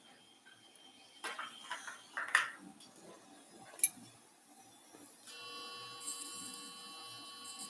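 Metal surgical instruments clink a few times, with one sharp click near the middle. From about five seconds in, an electrosurgical unit gives its steady activation tone while the electrocautery pencil cuts tissue, with a high hiss over it.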